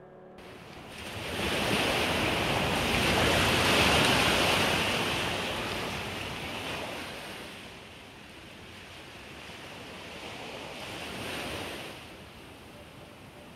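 Ocean surf washing onto a beach. One large wave swells and breaks a couple of seconds in and fades, and a smaller wave follows near the end.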